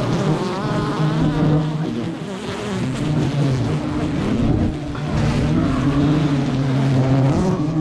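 A swarm of honeybees buzzing close around the microphone, several overlapping pitches wavering up and down, stirred up by the smoke of a leaf torch.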